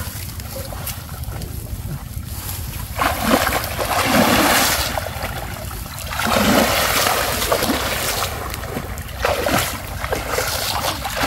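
Water splashing and sloshing in several bursts as people wade and feel with their hands through shallow canal water for fish in holes along the bank, over a steady low rumble.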